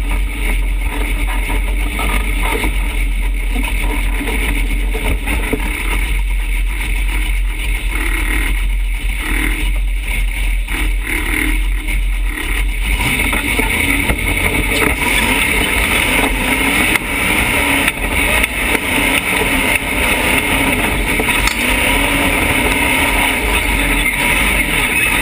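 Rock-crawling buggy's engine running with a steady low rumble, then throttled up about halfway through as the buggy climbs a steep dirt hill, its note louder and fuller under load.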